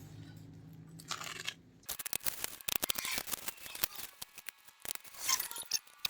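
Dense, irregular clicking and crackling as a Zorro kerosene lighter and its packaging are unboxed and handled, starting about two seconds in after a brief rustle.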